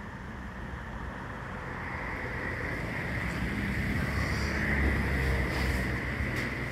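Steady rushing background noise with a low rumble, swelling over the first few seconds, with a few faint clicks near the end.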